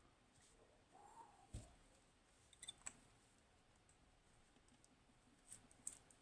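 A few faint, sharp clicks from handling a lock: one about one and a half seconds in, a small cluster near three seconds and a couple more near the end.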